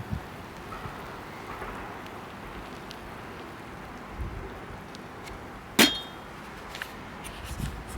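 One sharp metallic clink about six seconds in, ringing briefly, over faint outdoor background noise with a few light clicks.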